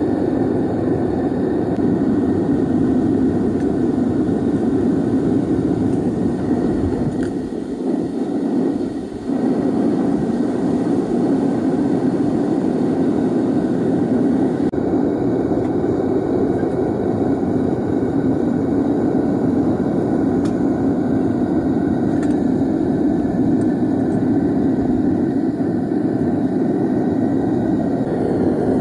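Gas burner of a homemade foundry furnace running at full fire, a steady low rushing noise that briefly dips about eight seconds in.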